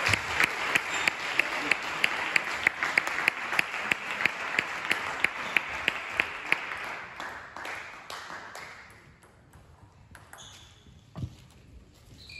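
Spectators' applause after a point in table tennis, with a steady beat of sharp claps about three a second, dying away after about eight seconds. A single knock about eleven seconds in.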